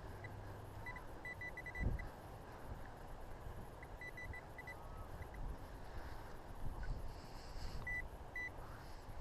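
A metal detector beeping, with short high pips at one pitch in quick runs of several, as it sounds over a dug target. Wind rumbles on the microphone throughout, and there is a dull thump about two seconds in.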